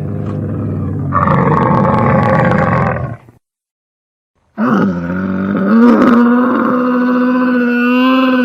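Camel calling: two long, rough calls with a silence of about a second and a half between them. The first gets louder and higher about a second in; the second holds a steadier pitch.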